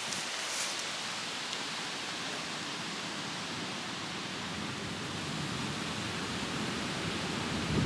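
Steady, even rushing hiss of outdoor ambience, with a brief low thump near the end.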